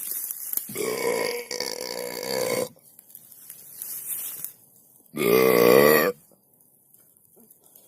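A person belching twice, loudly: first a long belch of about two seconds, then a shorter, louder one a few seconds later with a wobbling pitch.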